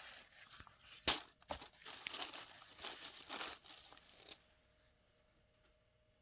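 Packaging crinkling and rustling as it is handled and unwrapped, with a few sharp crackles; it stops a little over four seconds in.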